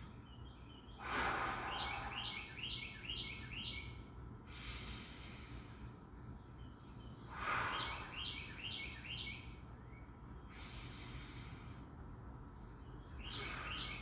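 Slow, audible human breathing in a 7-count breathing exercise, long breaths in through the nose and out through pursed lips, heard as soft rushes of air every three seconds or so. A bird chirps in quick series of about five high notes three times.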